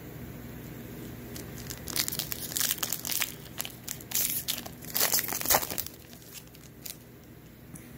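Plastic trading-card pack wrapper crinkling and tearing as it is ripped open and handled, a flurry of sharp crackles from about two to six seconds in.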